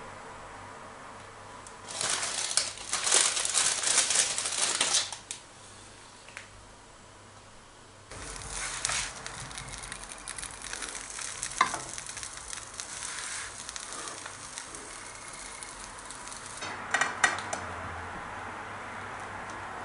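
Kimchi quesadilla sizzling in a frying pan, in two loud hissing stretches, with a few clicks and knocks of the spatula and pan. Near the end, a quick run of sharp clicks as a knife cuts through the quesadilla on a plate.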